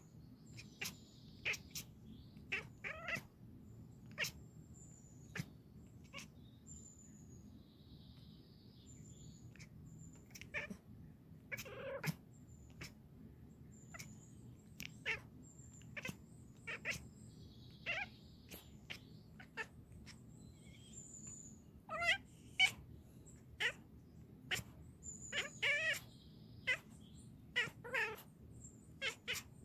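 Scottish Fold cat chattering: quick clicks and short wavering chirps in bursts, over and over, the excited chatter of a cat watching prey on a screen.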